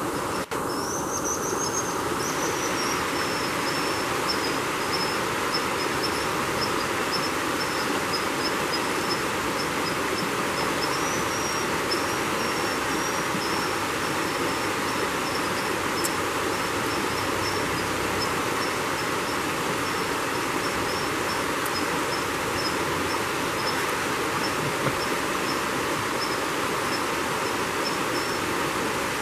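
Mountain creek rushing over rocks, a steady even wash of water. A thin, high-pitched, broken chirping runs through it almost throughout.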